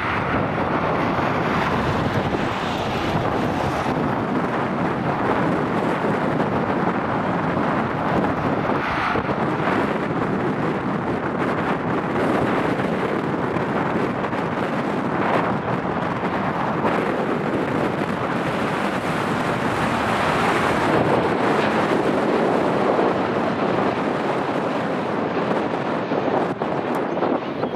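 Jet airliner engines at takeoff thrust, a steady loud rushing rumble that swells a little about two-thirds of the way through, with wind buffeting the microphone.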